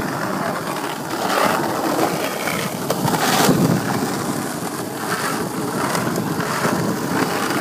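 Skateboard wheels rolling over an asphalt path: a steady gritty rumble, with a few knocks from the board along the way.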